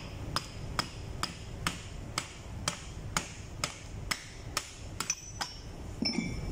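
Copper-headed hammer striking the steel body of a main engine fuel valve, about a dozen sharp metallic taps at a steady two a second, knocking the inner parts loose. A short ringing metal clink near the end.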